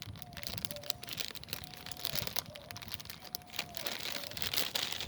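Plastic snack bag of candy-coated popcorn crinkling and rustling as it is handled, with irregular crackles throughout.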